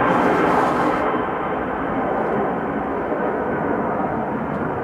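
Twin jet engines of a Boeing 767-300ER freighter departing after takeoff: a steady, broad engine roar that slowly fades as the aircraft flies away.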